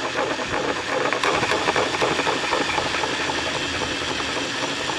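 Cordless drill running in reverse, its hole saw grinding slowly through a carpeted door panel: a steady motor whir with rattly scraping. The saw is still in the carpet and foam and not yet through.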